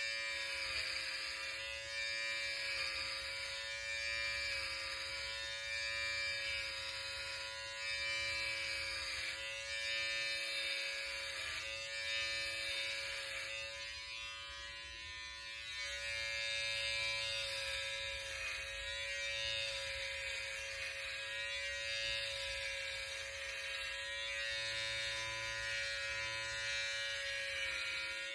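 Electric hair trimmer running with a steady buzz as it cuts short hair close to the scalp; the sound softens briefly about halfway through, when the trimmer is lifted away from the head.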